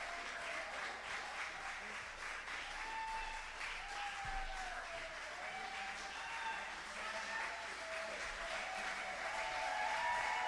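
Audience applauding, with drawn-out cheering voices rising and falling over the clapping.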